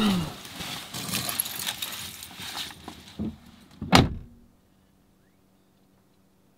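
Car keys jingling amid rustling handling noise, then two knocks about a second apart, the second a loud thump of a car door shutting; the sound then cuts to silence.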